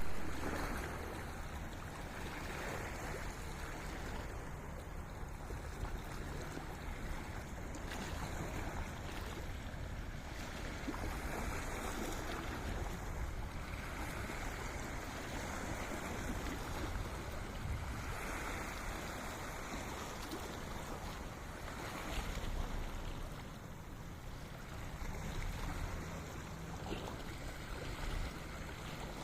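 Sea waves washing in and out along the shore in slow swells, with wind buffeting the microphone.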